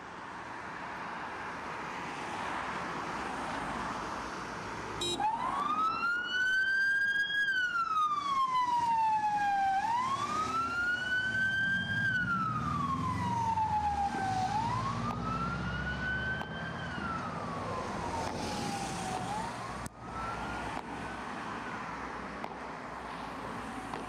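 Road traffic noise builds, then about five seconds in a police siren starts a slow wail, rising and falling about every five seconds. A vehicle engine rumbles past in the middle, and the wail fades near the end.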